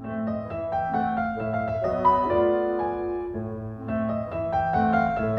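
Background piano music, several notes sounding together.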